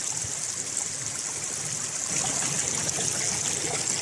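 Shallow river running steadily over stones, a continuous rush of water that swells slightly about halfway through.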